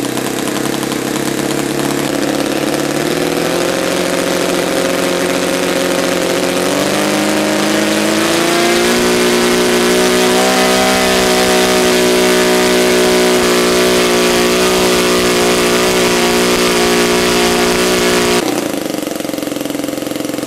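Saito FG-19R3 three-cylinder radial four-stroke engine driving its propeller on a thrust stand. It is opened up in steps to full throttle over about nine seconds, held steady at full power, then throttled back suddenly near the end. The engine is still being broken in and pulls about 3.5 kg of thrust.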